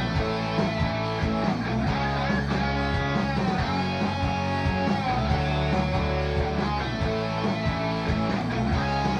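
Instrumental song intro led by guitar, with bass and a steady beat.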